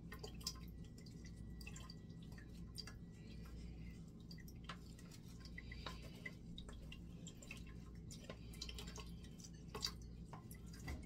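Wooden spoon pressing and scraping blended cucumber-and-ginger pulp through a metal mesh sieve, with juice dripping into a pot below: faint scattered clicks and scrapes over a steady low hum.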